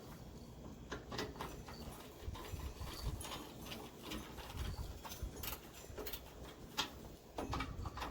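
Scattered light knocks and clicks of metal gas-grill parts being handled and fitted together during assembly, a few sharper taps standing out.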